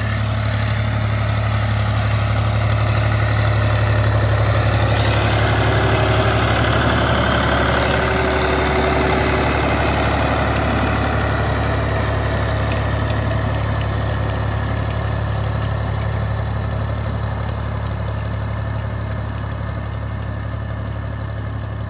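Fiat 480 tractor's diesel engine running steadily with a low hum while pulling a seed drill. It grows slightly louder over the first few seconds, then slowly fades.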